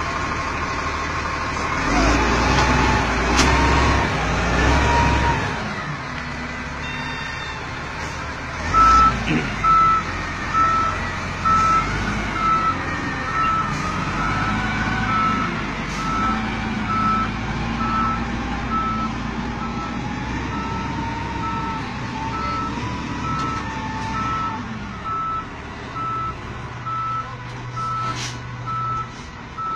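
Heavy diesel engines of a dump truck and wheel loader running and revving, louder for a few seconds near the start. A reversing alarm starts about nine seconds in and beeps in a steady, even series.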